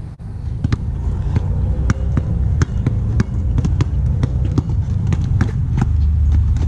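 A basketball being dribbled on an outdoor tiled sport court: a string of sharp, irregular bounces over a heavy low rumble on the camera microphone.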